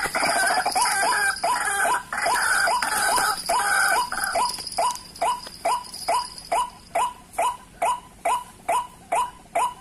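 White-breasted waterhen calling: a busy run of overlapping croaking notes for the first four seconds or so, then settling into a regular series of short repeated notes, about three a second.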